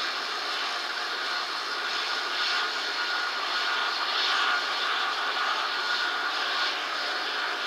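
Steady mechanical drone of harbour machinery working at the fish-unloading quay, with a faint high whine running through it and slow swells in level.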